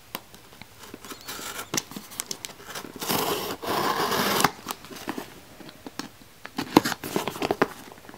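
A shipping package being opened by hand: scattered clicks and handling knocks, then a loud tearing of packaging about three seconds in that lasts about a second and a half, followed by more clicks and rustles.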